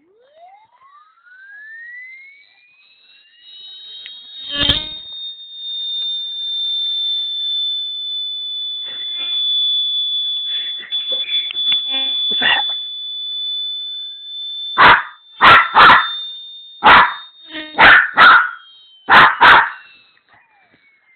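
A high-pitched electronic tone glides upward over the first few seconds, holds steady, then starts falling near the end. A dog answers it, with a thump about five seconds in, some brief vocalizing around the middle, and then a run of about eight sharp, loud barks in the last six seconds.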